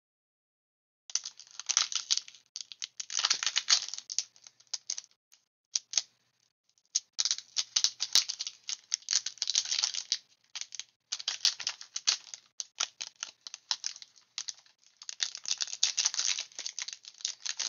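Foil wrapper of a Pokémon TCG booster pack crinkling and crackling as hands handle it and tear it open. The crackling starts about a second in and comes in four bursts with short pauses between them.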